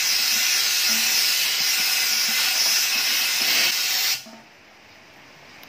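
Compressed air hissing steadily from an air blow gun's long nozzle pushed into a generator's fuel tank, blowing loose rust and sand out of the bottom. The hiss cuts off suddenly about four seconds in.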